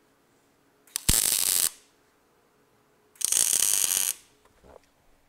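Two short arc-welding tacks on a steel square-tube cross bar, each a crackling, sizzling burst of under a second: the first about a second in, the second about three seconds in.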